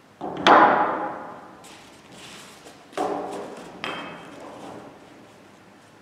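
Knocks of cylinders and a thin board being set down on a wooden inclined ramp, each ringing briefly. The loudest comes about half a second in and two more follow about three and four seconds in, with light handling rustle between them.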